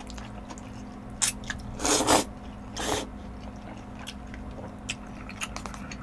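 A person eating jajangmyeon (black-bean-sauce noodles) close to the microphone: noodles are slurped and chewed, with three short noisy slurps in the first three seconds, then quieter chewing with small wet clicks.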